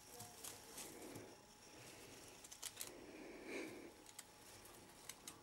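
Near silence, with faint rustling and a few soft, scattered clicks.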